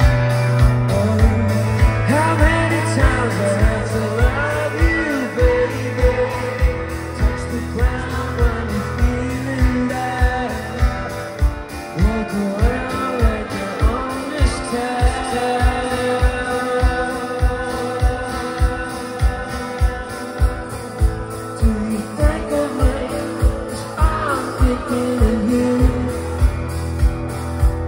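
Live rock band playing, with electric guitar, a steady drum beat and a male lead singer. It is heard from inside the crowd, so the sound is loud and roomy. The singing drops out for a stretch in the middle and comes back near the end.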